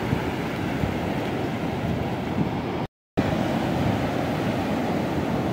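Steady rush of ocean surf breaking and washing up a sand beach. It cuts to silence for a split second about three seconds in.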